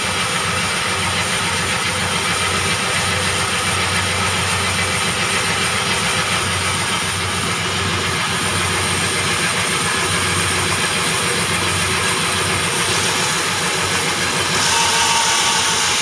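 Sawmill band saw machinery running steadily while the log is handled rather than cut: a constant low hum with a hiss over it. A brighter hiss swells briefly near the end.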